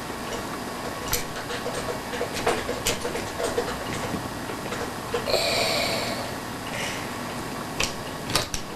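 Scattered light clicks and knocks of toilet tank parts being handled and worked on by hand. A short hissing scrape comes about five seconds in.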